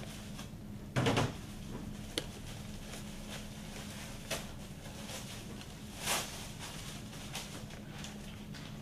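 Newspaper being handled and unwrapped, crinkling in short bursts about a second in and again about six seconds in, with a sharp click about two seconds in. A steady low electrical hum runs underneath.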